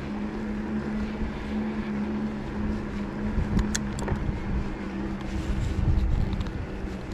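Electric bike riding along: a steady motor hum that weakens after about five seconds, over a low rumble of tyres and wind on the microphone, with a few sharp ticks near the middle.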